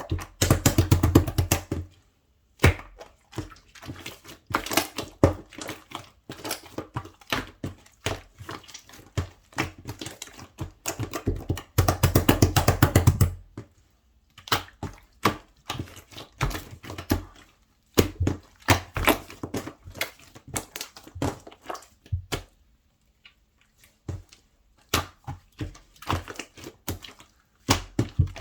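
Slime being squeezed and pressed by hand, giving bursts of rapid clicks and pops, the densest and loudest in the first two seconds and again around twelve seconds in.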